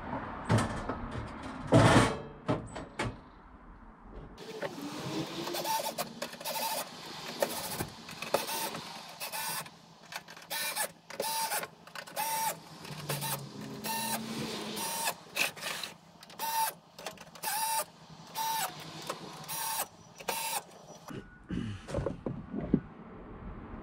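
Clunks and knocks as the metal casing of a Chinese diesel heater is pushed back on, then a small power screwdriver running in many short bursts, each a brief whine, as the casing screws are driven in.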